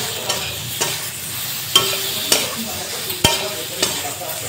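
A spatula stirs and scrapes spiced okra in a metal kadhai over a steady frying sizzle, with the ground masala being roasted onto the okra. The spatula clinks against the pan about every half second to a second, and the sharpest knock comes about three quarters of the way through.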